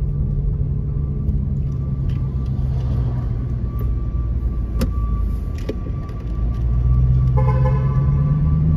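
Steady low engine and road hum heard from inside a car driving slowly, with a single sharp click about halfway. Near the end a car horn sounds for about a second and a half.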